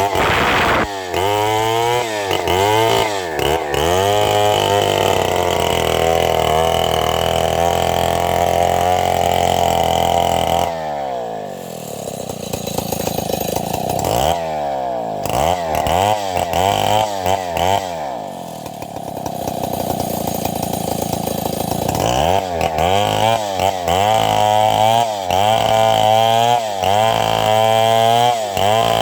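Two-stroke chainsaw cutting wood, its engine pitch rising and falling again and again as the throttle is worked. It holds steady at high revs for a few seconds and drops to quieter, lower revs twice.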